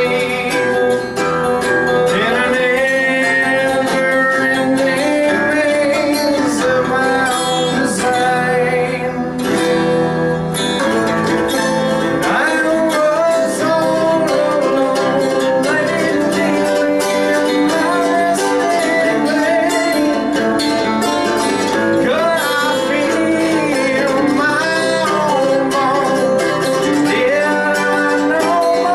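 Live acoustic guitars, strummed and picked, with a man singing along at the microphone.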